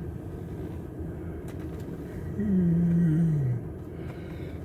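Steady low rumble of a car's engine and road noise heard from inside the cabin. About two and a half seconds in, a man gives one drawn-out low hum or groan that falls in pitch.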